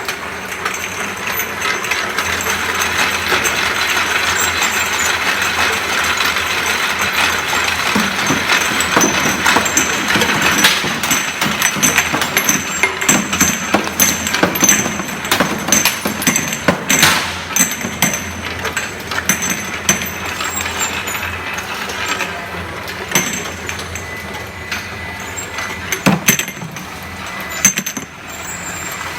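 MPC-DWX high-speed rotary star-wheel orientation labeling machine running: a steady mechanical noise with dense, irregular clicking and clattering as bottles are carried and turned through the star wheel.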